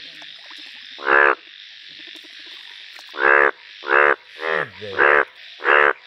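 Indian bullfrog croaking: six short calls, one about a second in and five in quicker succession from about three seconds in, over a steady high hiss.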